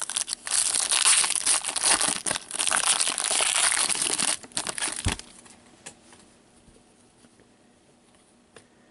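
Plastic packaging crinkling and rustling as gloved hands handle trading cards, ending with a low knock about five seconds in.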